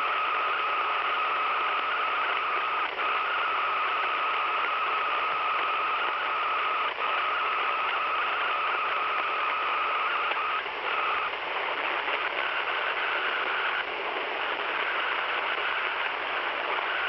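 Radio receiver playing a strange steady hissing signal with a steady high tone running through it. It drops out briefly about three, seven and eleven seconds in.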